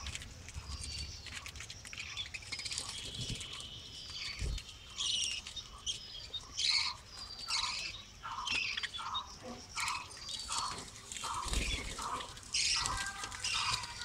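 A colony of budgerigars chirping and squawking, many short calls overlapping, with a run of evenly spaced chirps about twice a second in the second half.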